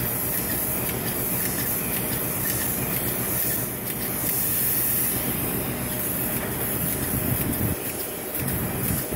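Roof-coating spray rig running: a steady machine drone with a constant high hiss.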